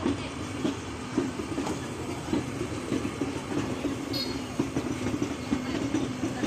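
Passenger train's LHB coaches rolling past, their wheels clicking over rail joints about twice a second over a steady rumble.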